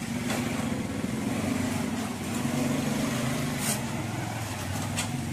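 Small step-through motorbike engines running as the bikes pull away, a steady engine note whose pitch drops and shifts a little partway through.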